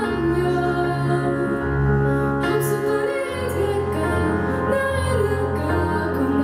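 A woman singing solo over live piano accompaniment, the piano holding low chords that change every second or so.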